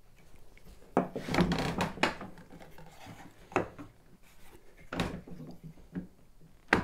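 A steel chisel pressed and scraped along a marking-gauge line in a piece of softwood held in a vise, a rough scraping of about a second, followed by three sharp light wooden knocks as the chisel and workpiece are handled on the bench.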